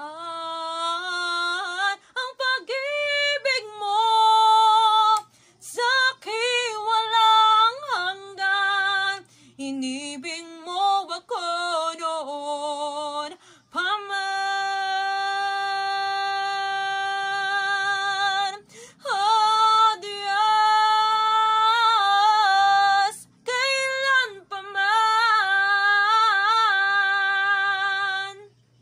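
A woman's voice singing the closing of a Tagalog worship song in drawn-out phrases and long held notes, with one long note in the middle. The singing stops just before the end.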